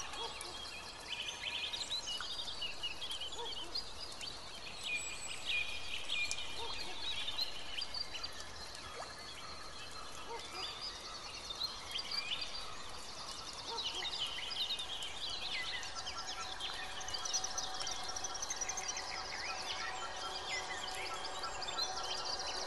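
Small birds chirping and twittering: many short, overlapping calls with some quick trills, over a faint steady hiss.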